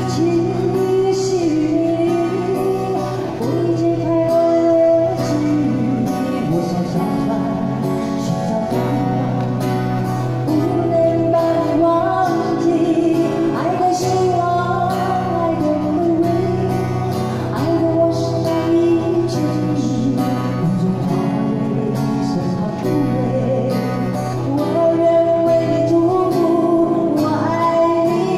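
A woman singing into a handheld microphone, accompanied by an acoustic guitar, both amplified through a small PA.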